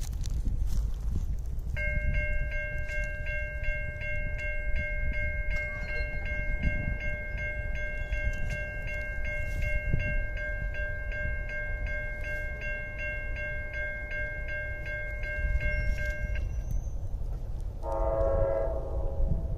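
Railroad grade-crossing warning bell ringing with an even, rapid pulse, stopping about three-quarters of the way through. Near the end the approaching train's diesel locomotive horn sounds briefly in the distance, over a low background rumble.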